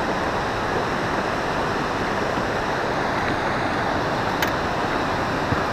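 Steady rushing noise of wind and moving water around a drifting fishing boat, with a couple of faint ticks near the end.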